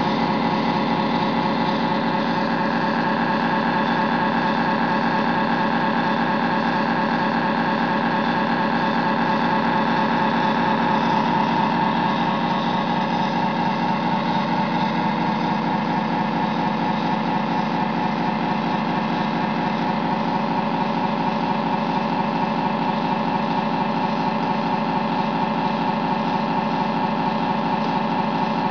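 Simulated diesel-engine sound from the sound unit of a radio-controlled AZ-TEC model tug, running steadily with an even rhythm and swelling slightly about ten seconds in.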